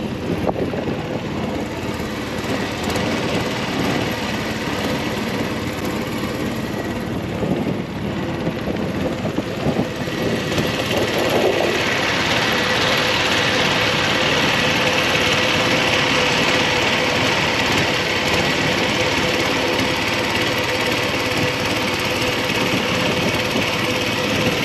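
A motorboat's engine runs steadily on the lake, with water rushing past the hull. From about halfway through, the hiss of the water grows louder.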